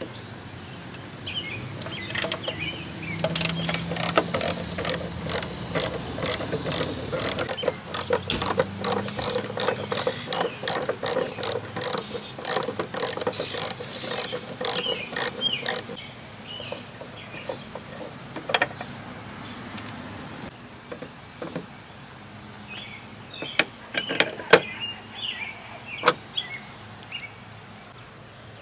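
Hand socket ratchet clicking as it tightens a bolt, a steady run of about two to three clicks a second for the first half, then only occasional clicks.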